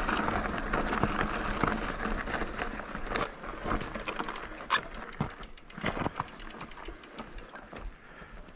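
Mountain bike riding a rough, rocky trail: a rush of wind and tyre noise for the first few seconds, then scattered knocks and rattles as the bike goes over rocks.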